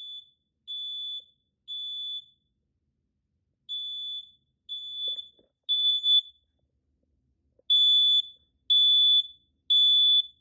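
First Alert 7020B smoke alarm sounding its test alarm, a single high piercing beep in the temporal-three pattern: three short beeps, a pause, repeated three times. Each group of beeps is louder than the one before.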